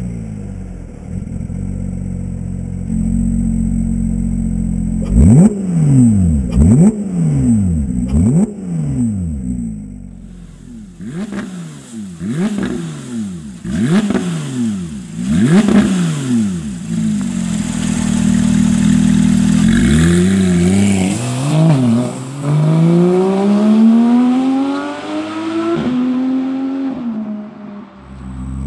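Porsche 991 GT3's 3.8-litre flat-six, breathing through a GMG sport exhaust centre section, is blipped again and again from idle, each rev rising and falling quickly. From about twenty seconds in it accelerates hard, its pitch climbing in long sweeps with a drop at each upshift.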